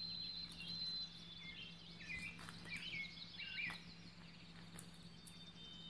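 Faint nibbling of long-haired guinea pigs eating fresh grass, scattered small clicks, with a few short high chirps between about one and a half and four seconds in.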